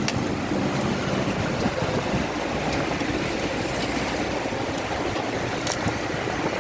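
Heavy rain falling in strong wind: a steady rushing noise, with a few sharp ticks.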